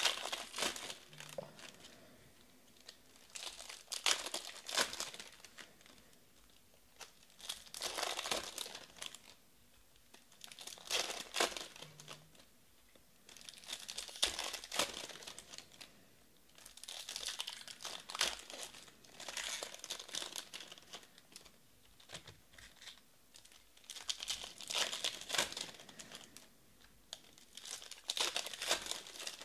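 Plastic-foil baseball card pack wrappers being torn open and crinkled by hand, one pack after another. The crinkling comes in short bursts every few seconds, with quieter gaps between them.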